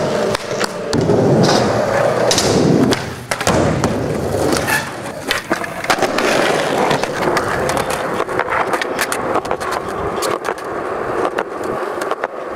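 Skateboard riding on concrete: the urethane wheels roll with a rough rumble, the board scrapes along a concrete ledge, and there are many sharp clacks and clicks from the board and from the wheels crossing pavement joints.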